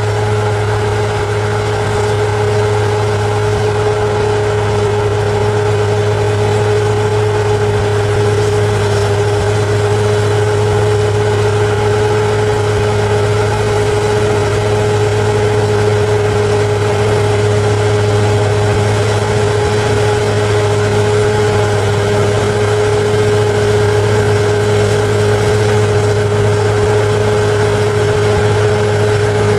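Bulldozer's diesel engine running steadily: a constant low drone with a steady whine above it that holds unchanged, with no revving or knocks.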